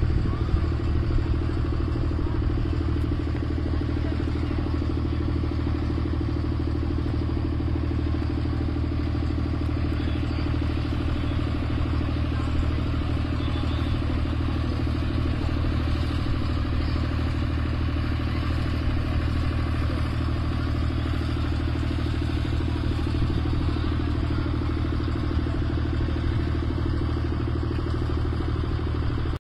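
A steady engine-like drone with a constant low hum that does not change in pitch or level, cutting off suddenly at the end.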